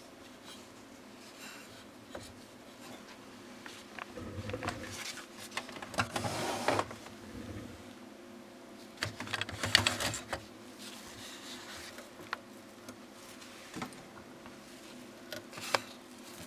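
Clicks and short bursts of rattling and rubbing from the opened mechanism of an Epson Artisan 50 inkjet printer as its parts are handled. The loudest stretches come about four to seven seconds in and again around ten seconds, followed by a few single clicks. A faint steady hum runs underneath.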